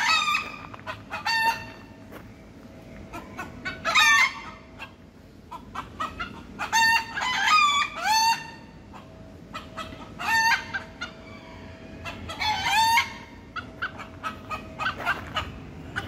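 Bantam roosters crowing over and over, one crow or shorter call every few seconds, the loudest about four and eight seconds in.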